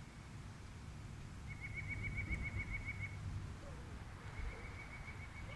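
A small bird singing a fast trill of evenly repeated high chirps, about seven a second, twice: a louder run of just under two seconds, then a fainter one near the end.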